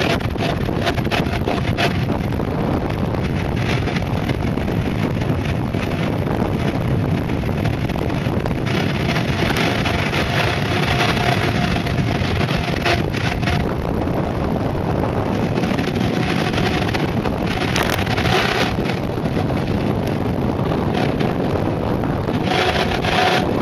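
Wind buffeting the microphone together with a mountainboard's pneumatic tyres rolling fast on asphalt: a steady rushing roar, with brief louder hissing surges now and then.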